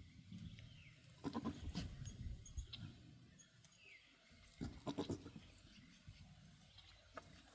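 Goats bleating twice, a second or so in and again near the middle.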